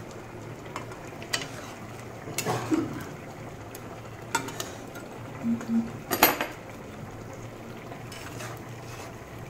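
Metal spatula stirring fish curry in a metal kadhai, knocking and scraping against the pan at irregular intervals, loudest a little after six seconds in.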